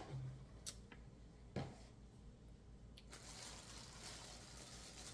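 Faint handling sounds as items are gathered up: a soft knock about a second and a half in, then quiet rustling of plastic packaging from about three seconds in.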